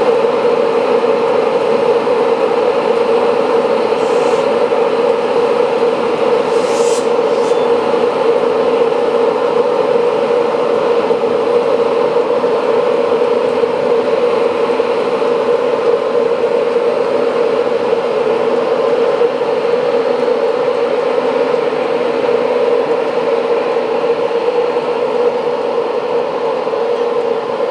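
British Rail Class 91 electric locomotive humming steadily as it stands at the platform and begins to pull away slowly. Two brief clicks come about four and seven seconds in.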